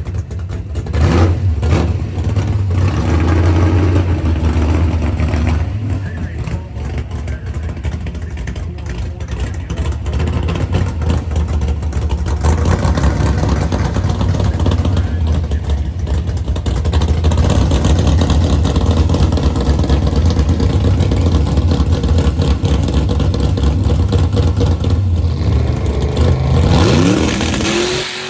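Loud car engine running, with a sharp rise in revs near the end.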